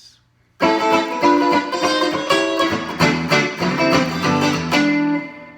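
1970–71 Epiphone ET270 electric guitar with 1960s EKO pickups, neck and bridge pickups in series, played clean through a 5F4 amplifier with a little compression and reverb. A short phrase of picked notes and chords starts about half a second in and rings out, fading near the end.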